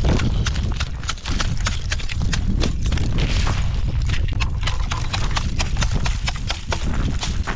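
Wind buffeting the microphone in a steady low rumble, with many irregular sharp crunches and cracks of ice throughout.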